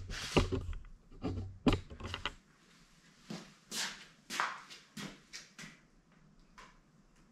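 Rustling and bumping handling noise close to the microphone for about two seconds, then a handful of separate short scuffs and taps as a motorcycle windshield is held up against the handlebars.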